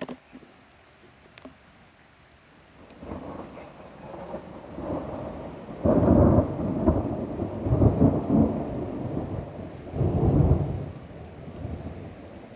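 Thunder rumbling over rain: it builds from about three seconds in, peaks in several loud rolling swells through the middle, and fades toward the end.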